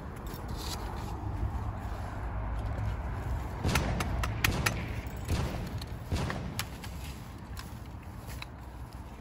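Rustling and footsteps in dry brush and dirt, with a cluster of sharp clicks and knocks about four seconds in and a few more shortly after.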